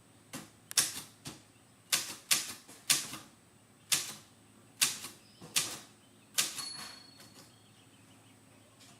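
Typewriter keys struck one at a time at an uneven, slow pace, about a dozen sharp clacks, stopping about two-thirds of the way through.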